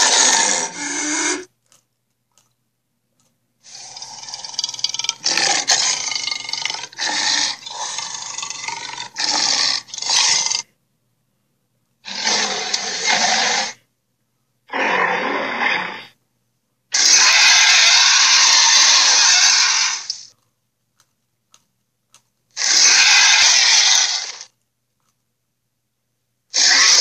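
Allosaurus roar and growl sound effects: a string of separate rasping roars, about seven in all, each one to three seconds long with dead silence between them. The longest, starting a few seconds in, breaks into several pulses over about seven seconds.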